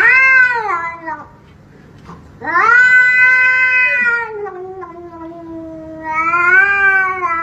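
A cat yowling in long, drawn-out wails: one call tails off about a second in, and another starts a second later and lasts about five seconds, falling in pitch and then rising again near the end.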